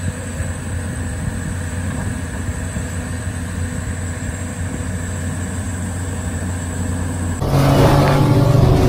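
Heavy diesel engines of a Caterpillar excavator and a dump truck running steadily. About seven and a half seconds in this cuts off abruptly into louder intro music.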